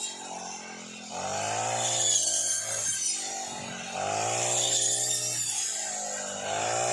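Brush cutter engine revving up and dropping back three times, each surge rising and falling in pitch over two to three seconds.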